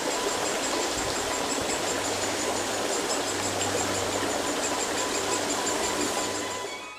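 Water of a rocky woodland stream running over stones: a steady, even rushing hiss that fades out near the end.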